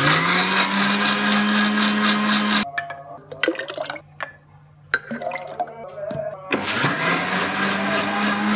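Electric blender whipping yogurt into lassi. The motor spins up with a rising whine, runs steadily and stops abruptly about two and a half seconds in. A few clinks of a spoon follow, and the blender is started again about six and a half seconds in.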